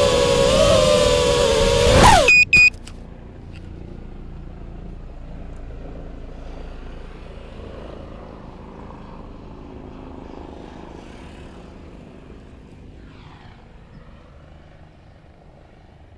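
Cobra CP2205 brushless motors spinning DAL 5040 props on a 220 mm FPV quadcopter, a loud whine wavering slightly in pitch, then dropping sharply and stopping about two seconds in as the motors wind down after landing. Two short high beeps follow, then only a faint, steady low background noise.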